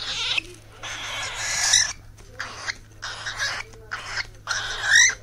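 Cockatiel giving baby-style food-begging calls while eating millet: repeated raspy, hissing bursts about one a second. A short sharp rising squeak comes near the middle, and a louder one near the end. This is a weaned bird regressing to chick begging calls.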